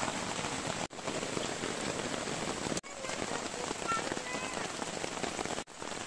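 Steady rain falling, an even hiss that drops out briefly three times.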